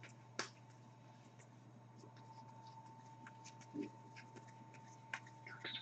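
Faint, sparse clicks and flicks of a small stack of hockey trading cards being thumbed through by hand, with a cluster of quick ticks near the end, over a low steady hum.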